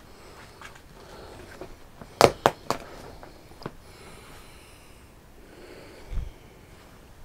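A few sharp clicks or knocks in an otherwise quiet room: three in quick succession a little over two seconds in, a fainter one about a second later, and a dull low thump near the end.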